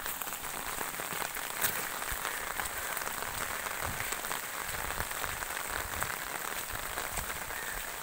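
Muddy rainwater runoff flowing down an unpaved village street, a steady splashing hiss with many small ticks.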